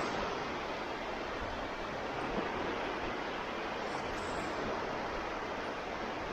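Gentle Baltic Sea waves washing on the shore in a steady, even hiss of surf.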